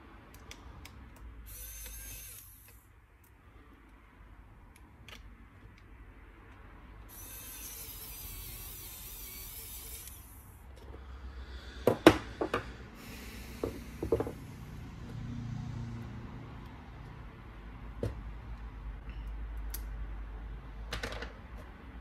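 Pen-style electric precision screwdriver whirring in two short runs, the second one longer, followed by several sharp clicks and knocks of small laptop parts and screws being handled.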